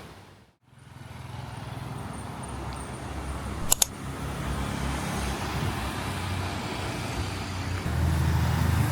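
Street traffic: vehicle engines running steadily with road noise, after music fades out at the very start. Two sharp clicks close together about four seconds in.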